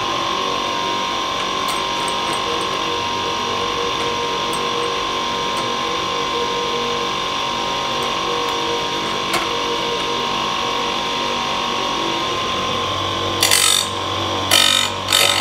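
Electric chainsaw-chain sharpener grinder running with a steady whine, then near the end the grinding wheel is brought down lightly onto a cutter tooth in short grinding bursts, twice.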